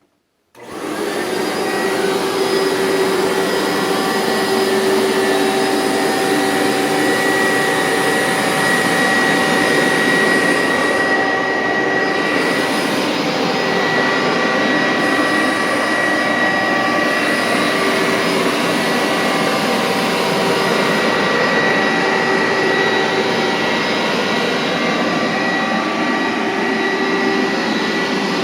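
A 1999 Hoover SteamVac Widepath carpet cleaner is switched on about half a second in. Its motor spins up within a couple of seconds, then runs steadily with a whine over a dense rush of airflow.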